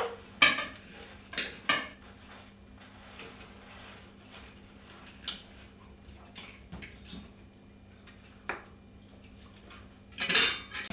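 Knives and forks clinking and scraping on china plates as a meal is eaten, with several sharper clinks of plates being handled, over a faint steady hum. There is a louder clattering burst near the end.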